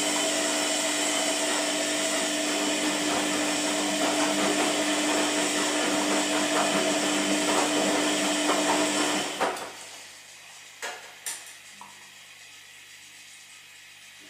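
Washing machine running with a steady whirring hum, which stops abruptly about two-thirds of the way through. A quieter background remains, with a couple of short clicks.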